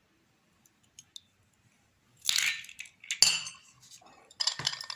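Kitchen handling sounds as a farm egg is cracked and its yolk separated into a bowl: brief scrapes and clinks of shell and bowl, with one sharp knock about three seconds in.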